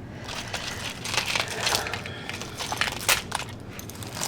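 Crackly rustling and irregular sharp clicks of a bag of costume jewelry being rummaged through by hand, with several louder clicks along the way.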